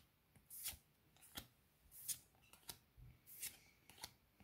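Faint handling of Pokémon trading cards: a string of short card slides and flicks, about two a second, as cards are moved and turned over.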